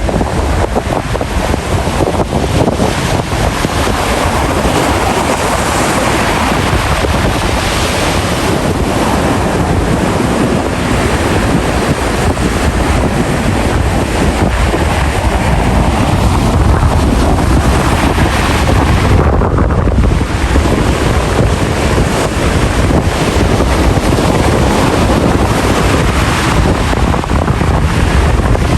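Ocean surf: a steady rush of waves, with wind buffeting the microphone and adding a heavy low rumble.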